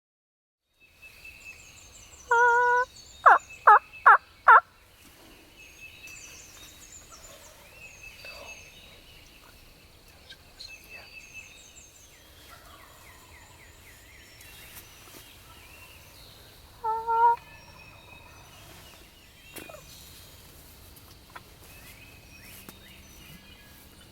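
Wild turkey gobbling: a loud call with four quick notes a couple of seconds in, and a shorter call later on. Songbirds chirp faintly in the background.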